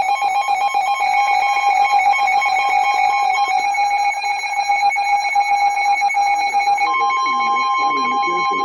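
Emergency Alert System alert tones coming over a radio before a severe thunderstorm warning: a steady alert tone under a harsh, rapidly chattering data-burst buzz. About seven seconds in the buzz stops and a second, slightly higher steady tone comes in.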